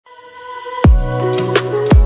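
Background music: held tones fading in, then a beat with two heavy, deep hits, about a second in and at the end, and a sharper hit between them.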